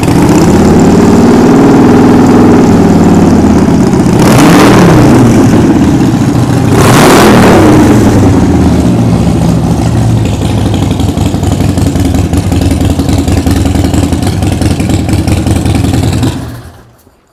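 2015 Harley-Davidson Sportster Forty-Eight's 1202 cc air-cooled V-twin, breathing through Vance & Hines pipes, running at a loud idle. The throttle is blipped twice, about four and seven seconds in, each rev rising and falling back, then the engine settles into a steady idle and is switched off near the end.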